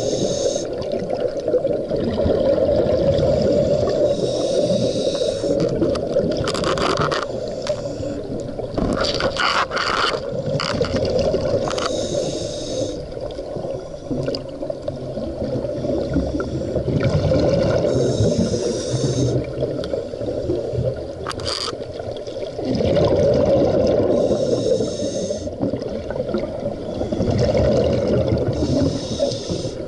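Scuba diver breathing through a regulator underwater: a hiss on each inhale and a rush of bubbles on each exhale, repeating roughly every five or six seconds. A few sharp clicks and knocks come in the first half and once more past the middle.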